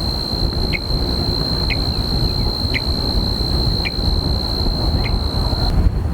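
A steady high insect trill runs throughout, with a short chirp repeating about once a second, over a low rumble like wind. Near the end the trill drops in level and the rumble grows.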